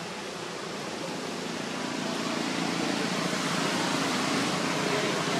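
Steady rushing background noise that grows louder about two seconds in, with no animal calls.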